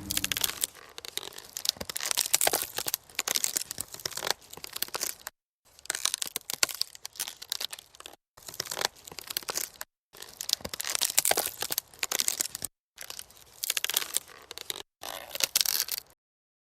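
Horror sound effect of harsh crunching and tearing noise, coming in a string of bursts broken by sudden silent gaps, and cutting off suddenly near the end.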